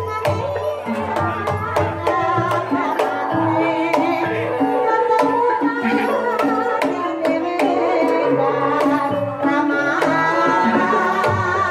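Javanese gamelan music accompanying an ebeg dance: hand-drum strokes over stepped melodic notes from tuned percussion, with a wavering melodic line above.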